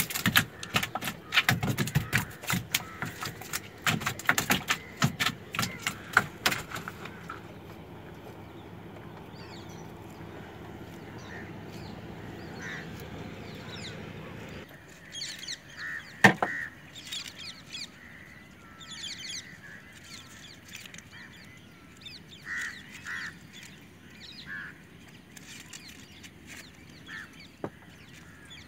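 Freshly caught fish flapping and slapping against the bottom of a boat hull, a rapid run of sharp knocks for the first several seconds. Later come scattered short bird calls and a single sharp knock.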